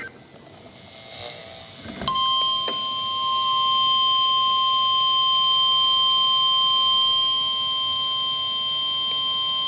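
NOAA Weather Radio warning alarm tone: a single steady pitch that starts about two seconds in and holds unbroken. It signals the start of a National Weather Service warning broadcast, here a special marine warning.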